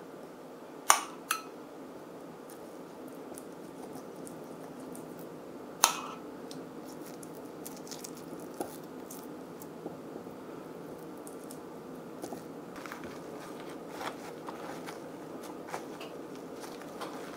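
A metal basting spoon clinking against glassware a few times, two quick clinks about a second in and a louder one near six seconds, as sauce is spooned over a seitan roast in a glass baking dish. Faint small ticks and rustles follow as hands smooth the sauce over the loaf, over a steady low hiss.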